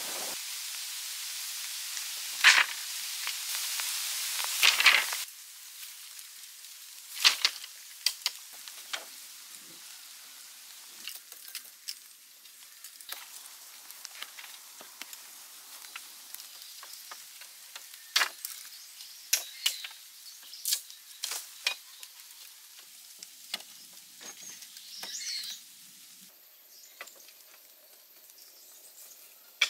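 Hand work in earth and wood: a steady hiss with two sharp knocks for about the first five seconds, then scattered scrapes, clicks and knocks of soil being dug and wood being handled.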